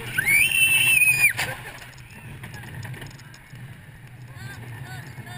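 A rider on a steel roller coaster gives one high scream, rising and held for about a second before breaking off. The coaster train then runs on along the track with a steady low rumble.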